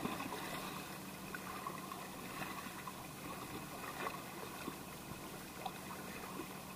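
Sea water gently lapping and trickling among the rocks of a breakwater, over a steady low hum, with a few faint clicks.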